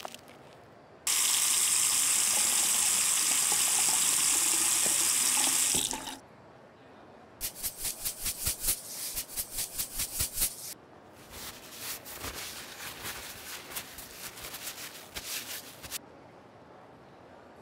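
Tap water running hard onto an apple that gloved hands rub clean; it starts about a second in and stops sharply about five seconds later. Then comes a fast, even run of short scratchy strokes, about eight a second, followed by a looser, quieter run.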